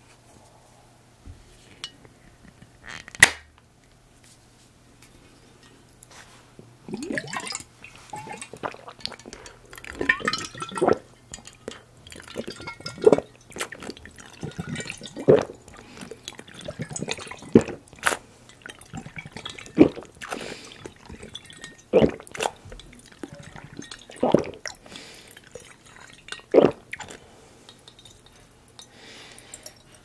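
Close-miked drinking from a clear glass hammer-shaped bottle: liquid sloshing and trickling through the glass handle, with loud gulps about every two seconds from about seven seconds in. A single sharp click about three seconds in.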